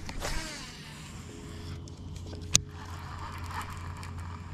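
Lure retrieve on a baitcasting reel, with a swish near the start and one sharp click about halfway through. A faint steady hum runs underneath.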